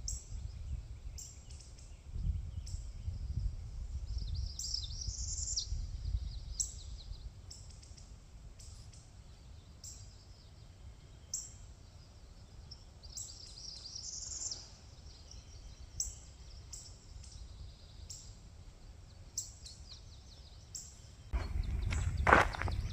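Outdoor birdsong: short high chirps repeating about once a second, with two longer warbling songs, over a low rumble. About 21 seconds in, footsteps start, close and loud.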